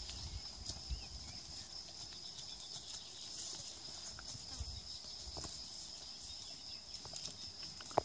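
Goat herd stirring under trees: scattered light clicks and rustles of hooves on dry grass and twigs, over a steady high-pitched drone.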